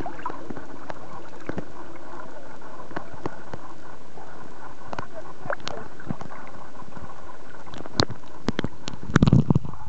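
Small waves sloshing and gurgling against a camera sealed in a waterproof case at the sea surface, heard muffled through the case, with scattered clicks and knocks and a louder cluster of knocks near the end.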